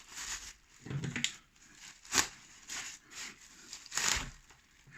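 Packaging being torn and crinkled open by hand: rustling with a few sharp rips, the loudest about two and four seconds in.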